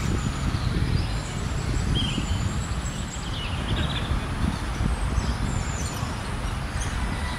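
Outdoor park ambience: a steady low rumble with a few faint, short bird chirps scattered through it.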